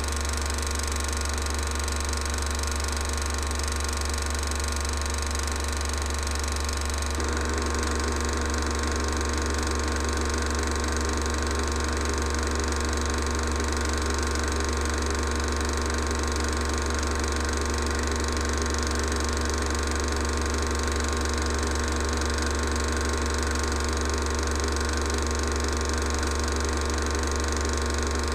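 Film projector running with a steady mechanical whirr over a low hum, its tone shifting slightly about seven seconds in.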